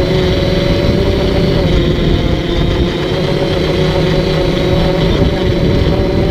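DJI Flamewheel F450 quadcopter's electric motors and propellers in flight, picked up by the camera on the drone. A steady multi-pitched whine sits over a low, rushing rumble.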